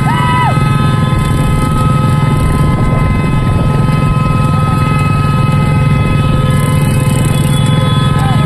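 Motorcycle engines running steadily at road speed, with heavy wind rumble on the microphone, forming one loud, continuous drone. A brief high tone sounds at the very start.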